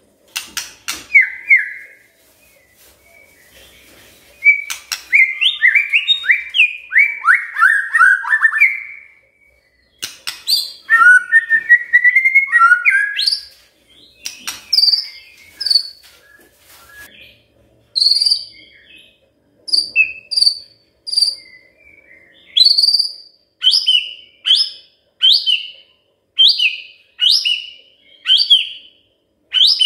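White-rumped shama singing varied whistled phrases. Early on comes a run of notes falling in pitch; from about halfway there is a string of short, rising-and-falling whistles roughly one a second.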